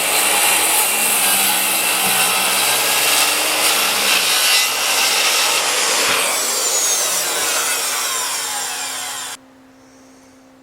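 Continuous sawing on wood, cutting off abruptly about nine seconds in and leaving a faint steady low hum.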